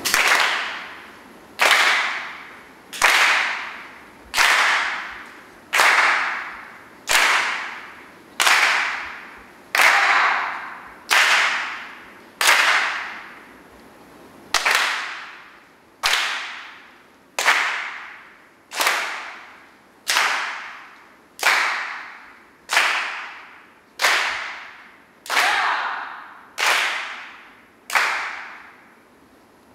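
Sharp percussive strikes at a slow, even beat, about one every second and a half and about twenty in all, each ringing away over about a second. A faint steady high whine sits underneath.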